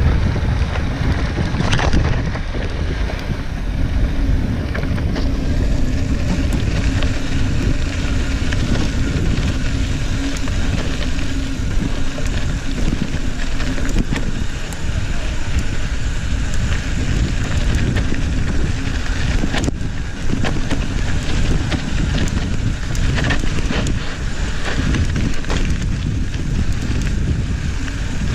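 Wind buffeting an action camera's microphone over the rumble of a mountain bike's tyres rolling down a dry dirt trail, with frequent small knocks and rattles from the bike over rough ground.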